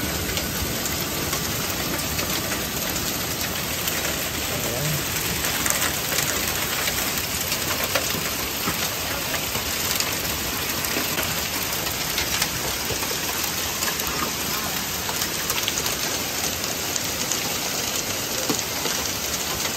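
Heavy rain pouring down steadily onto the ground, roofs and a wooden deck, with occasional sharper taps standing out.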